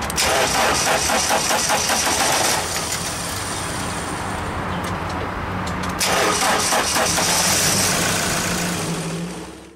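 Toyota Hilux 3-litre turbo diesel cranked by its starter off a portable jump-start pack, with the vehicle's battery bypassed, and starting twice: a couple of seconds of fast, even cranking and firing at the start, then again about six seconds in, with the engine running between.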